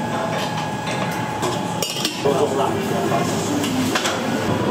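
Bowls, dishes and utensils clinking and knocking in a busy noodle-shop kitchen, with a sharp knock about two seconds in and another near four seconds.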